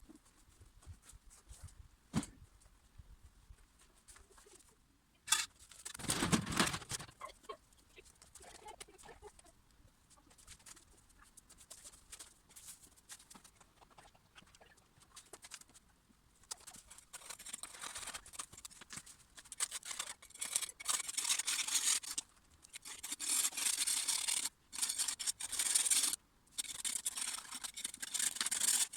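Intermittent rustling and scraping with scattered clicks and a single thump about six seconds in; the rustling comes in denser bursts of several seconds each through the second half.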